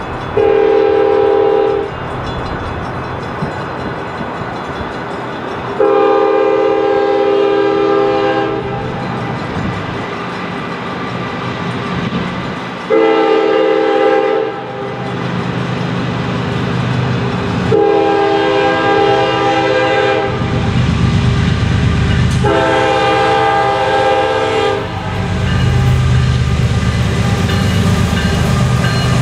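Union Pacific diesel locomotive's air horn sounding five blasts for the grade crossing: a short one at the start, a long one, a short one, then two long ones. Under the horn, the rumble of the locomotive and its wheels grows as the train draws near and comes loud in the last several seconds.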